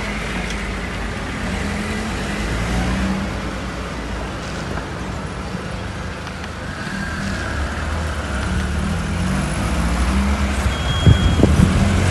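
Cars driving slowly over a rubber speed bump, engines running low, with a few knocks near the end as a car's wheels go over the bump.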